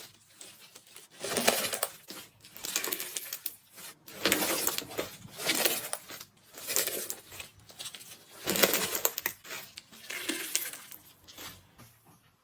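Crispy iceberg slime crackling as its dried crust is pressed and squeezed, in a series of crunchy bursts about a second or so apart.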